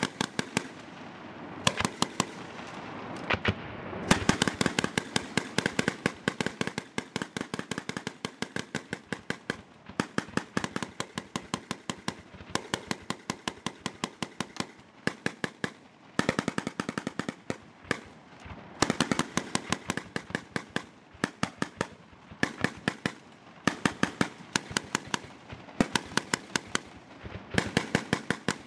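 Automatic gunfire in rapid bursts, several shots a second, with short pauses between the bursts.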